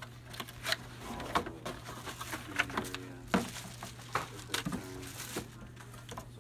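Cardboard box and packaging being handled: irregular sharp crackles, knocks and rustles as flaps are pushed aside and an item is lifted out, over a steady low hum.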